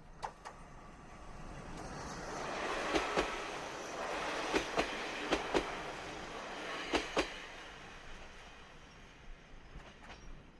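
Kominato Railway diesel railcar passing at low speed, its wheels clicking over the rail joints in pairs, axle after axle, as the rumble swells and fades.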